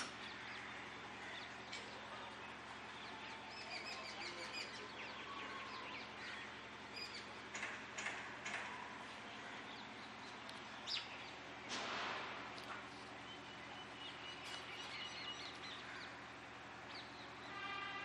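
Faint outdoor ambience: birds chirping here and there over a low steady hum, with a few soft clicks. A held pitched sound with several tones sets in near the end.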